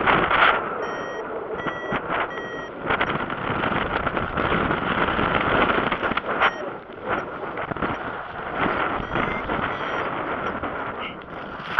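Wind rushing over the microphone of a paraglider pilot's camera in flight, rising and falling in gusts. About a second in come three short, evenly spaced beeps, typical of a paragliding variometer.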